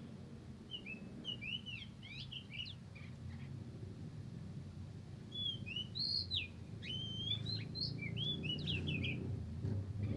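Songbirds singing in two bouts of quick, rising and falling whistled phrases, the second and louder one starting about halfway through. A low steady hum runs underneath.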